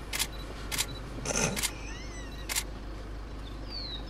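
Camera shutter firing single shots, four sharp clicks at uneven intervals, with a short rushing noise about a second and a half in.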